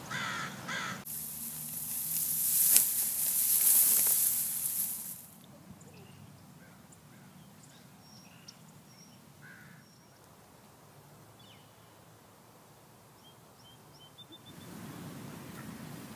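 A loud rushing hiss lasting about four seconds, then quiet marsh ambience with a few faint, scattered bird chirps. Near the end a steady low rumble of noise comes up.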